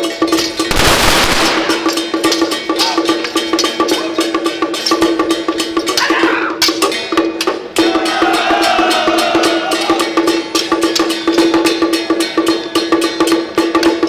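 Traditional temple percussion of drums, gongs and cymbals beating in a fast, continuous rhythm over a steady ringing tone, accompanying a Song Jiang Zhen martial-arts routine. A loud, noisy crash comes about a second in.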